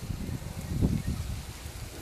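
Wind buffeting the microphone: irregular low gusts that swell about a second in and ease off again.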